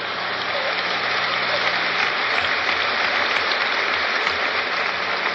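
Large audience applauding with some laughter, the clapping swelling within the first moment and then holding steady.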